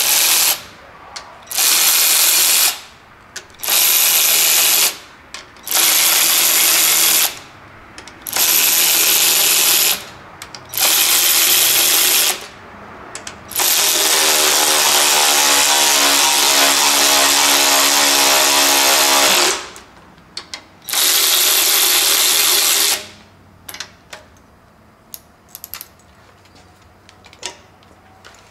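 Cordless electric ratchet running cylinder head bolts down into a Jeep 4.0 inline-six block ahead of torquing. It gives about seven short runs of a second or so each with brief pauses, then one longer run of about five seconds at a steady pitch and one more short run, followed by a few light clicks near the end.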